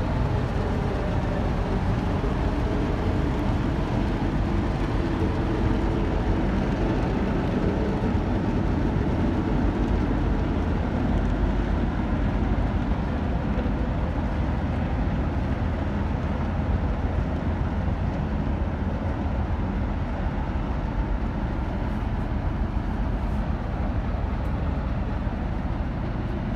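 Steady low rumble of a ship's diesel engine running.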